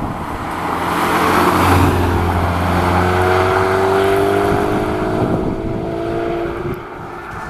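Subaru Impreza WRX STI's turbocharged flat-four engine sounding through an HKS Super Turbo Muffler as the car passes close by, loudest about two seconds in. It then accelerates away, the exhaust note climbing in pitch as it fades.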